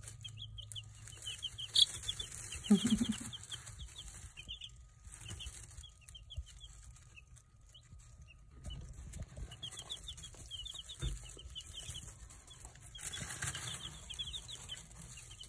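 Baby chicks peeping: many quick, high cheeps in overlapping runs. A brief low hum comes about three seconds in, and a rustle near the end.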